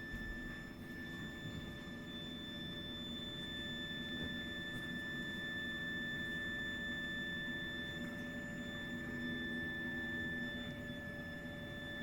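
Continuous shrill, high-pitched whine from a heat interface unit (HIU) and its heating pipework, holding one steady pitch over a low hum. It is an abnormal plumbing noise that occurs even when the heating and hot water are not in use.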